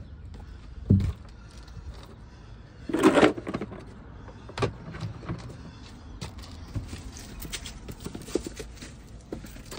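Leather hiking boots stepping and scuffing on gritty asphalt, with a thump about a second in and a louder, half-second scrape around three seconds in, then scattered light scuffs and clicks.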